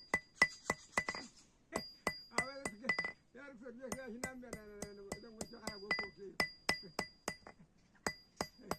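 Blacksmith's hammer striking metal on an anvil in a steady rhythm of about three blows a second, each blow ringing with a bright metallic ping, with a short pause near the end. A voice sounds over the hammering for a few seconds in the middle.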